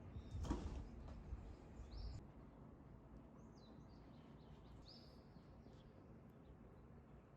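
Faint outdoor ambience: a few short, high bird chirps over a low, steady background noise, with a brief louder rustle about half a second in.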